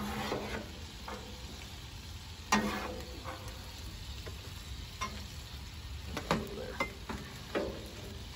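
A metal spatula scrapes and knocks on the steel top of a Blackstone griddle while fried rice is scooped off into a plastic bowl, and food sizzles steadily on the hot griddle. There are several sharp scrapes; the loudest comes about two and a half seconds in.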